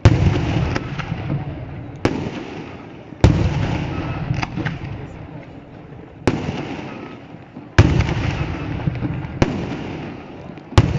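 Aerial fireworks shells bursting, about seven loud bangs at uneven gaps of one to three seconds. Each bang is followed by a rumbling echo and some crackle that fade away.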